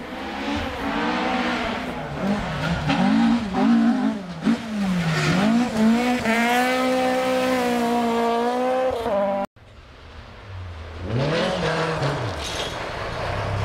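Toyota Corolla GT AE86 rally car's 1.6-litre twin-cam four-cylinder engine revving hard, its pitch climbing and dropping again and again through gear changes and lifts. About nine and a half seconds in the sound cuts off abruptly and comes back quieter, with one more rise and fall of revs.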